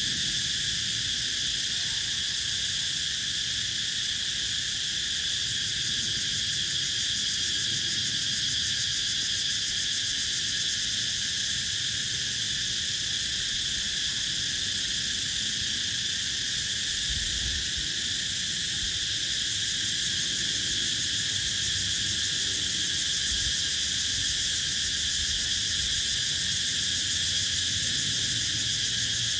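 Steady, high-pitched chorus of many insects that does not change in level or rhythm.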